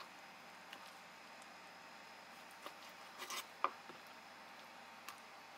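A few scattered soft taps and wet squelches from a kitchen knife and fresh squid being handled on a plastic cutting board, the loudest a little past halfway, over quiet room tone.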